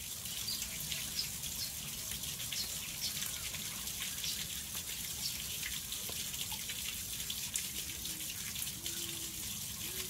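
Steady sound of running water in the background, with soft chewing ticks from a man eating, and a faint closed-mouth hum in the last two seconds.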